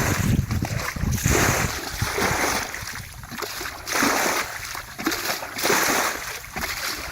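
Water splashing and sloshing in repeated surges, about one every second and a half.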